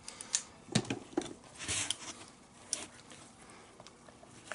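Leather lacing of a catcher's mitt being worked out with pliers: scattered sharp clicks and ticks as the laces are gripped and tugged, with a brief scraping rustle a little under two seconds in.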